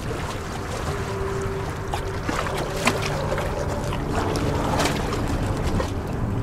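Wind rumbling on the microphone over water sloshing around a large dog, a Doberman–Rottweiler mix, as it paddles through the bay, with a few small splashes.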